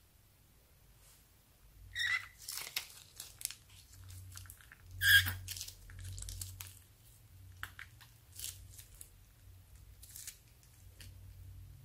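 Soft plastic bag of thick green liquid squeezed out by hand over slime: wet squelches and crinkling of the plastic, with two louder squeaky squelches about two and five seconds in, then scattered smaller crackles as the emptied bag is wrung out.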